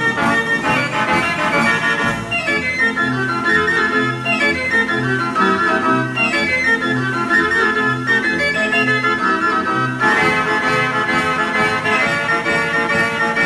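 1909 Wurlitzer Monster Military Band Organ playing a tune, back in action after a broken crankshaft silenced it. Its pipes sound over a steady bass line of repeated low notes, with percussion strokes in the first couple of seconds and again from about ten seconds in.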